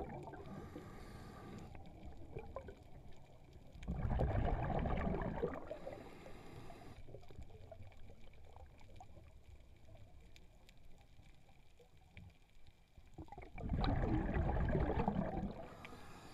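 Underwater sound of a scuba diver's breathing. Two long bubbling rushes of exhaled air come about four seconds in and again near the end, with a faint regulator hiss on the inhales between them.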